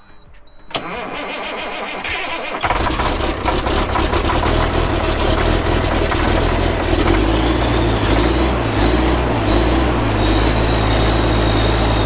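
Duramax diesel pickup truck being started: the starter cranks for about two seconds, then the engine catches and settles into a steady idle. A thin high tone comes in over the idle about halfway through.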